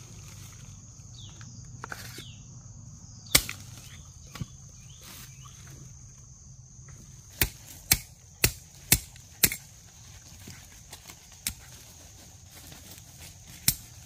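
A hand tool chopping into earth and roots: a single sharp strike, then a run of five about two a second, and a couple more near the end. A steady high insect drone continues behind them.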